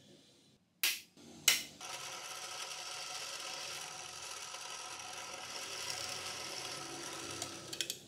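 Two sharp clicks, then an electric drill running steadily as its twist bit bores through a steel latch bracket, with a few small clicks near the end.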